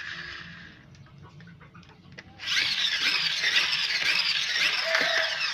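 Toy friction-powered monster truck whirring loudly, its flywheel gearing spinning as the truck is pushed. It fades out early, with a few light plastic clicks, then starts again abruptly about two and a half seconds in.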